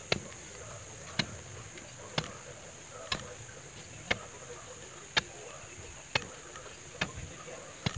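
Long digging bar driven down into the soil to dig a fence post hole by hand: a sharp thud about once a second, nine strikes. A steady high insect drone runs underneath.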